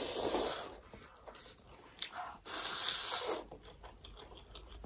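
Thukpa noodles being slurped up, two long slurps about two seconds apart, with faint chewing clicks between.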